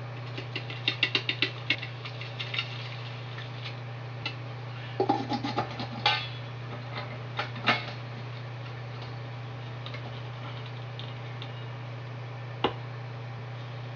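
Metal cooking pot and its lid clinking and clanking as the lid is handled and set on the pot. There is a quick run of small clicks in the first two seconds, a cluster of clanks with a brief metallic ring about five seconds in, and louder clanks near six and eight seconds. A single knock comes near the end, and a steady low hum runs underneath.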